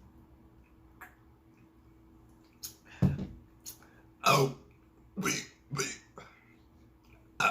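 A person burping loudly after drinking soda: one deep burp about three seconds in, then a run of shorter burps, an attempt to burp out the name 'BB'.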